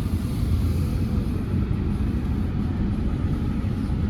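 Car moving slowly, heard from inside the cabin as a steady low rumble of engine and road noise.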